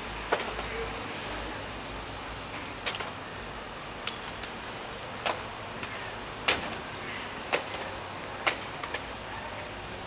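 A crow's beak pecking and flipping a clamshell food container on cobblestones: a series of sharp, irregular clacks, roughly one a second, over a steady outdoor hiss.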